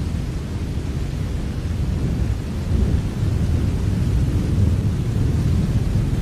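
Steady rain, an even rushing noise under a deep, continuous low rumble, with no separate claps or drops standing out.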